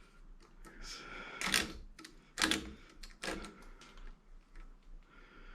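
Lacing strings on an electric motor's copper windings being cut: a handful of sharp, irregular snips and clicks, three of them louder than the rest.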